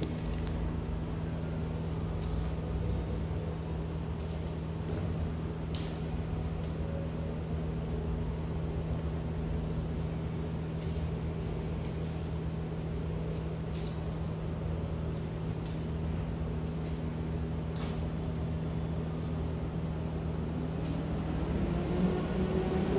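Fanuc M20iA industrial robot on its linear rail under power, its servo drives giving a steady electrical hum with a few faint clicks as the arm moves at reduced speed. Near the end a rising whine comes up.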